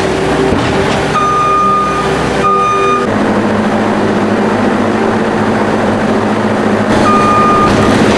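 New Holland skid steer loader running steadily while it works compost with a mixing bucket attachment, with its backup alarm sounding long beeps: two a little over a second in, and another about seven seconds in.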